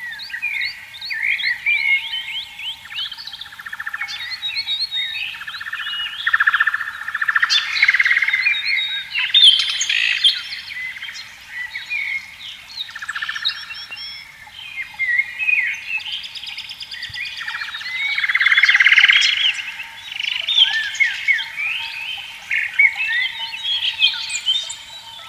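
A chorus of many birds chirping and whistling, with frogs calling in pulsed trills that come and go every few seconds.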